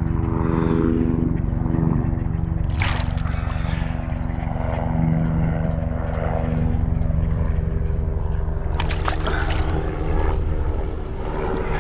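A steady low engine drone with a few held tones in it runs throughout. Two short, sharp splashes come about three and nine seconds in, as a hooked jack pike thrashes at the water's edge while being landed.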